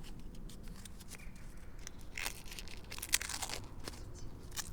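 A Velcro strap and a battery pack being handled as the pack is strapped onto a bicycle: a series of short rasps and clicks, the loudest about two seconds in and just after three seconds.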